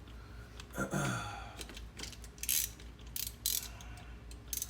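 Short clicking and scraping handling noises, several brief hissy rasps after about two seconds, over a steady low hum; a short vocal murmur about a second in.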